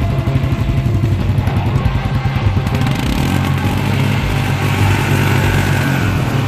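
Royal Enfield Himalayan's single-cylinder engine running at a steady idle close by, with a fast, even pulsing beat and no revving.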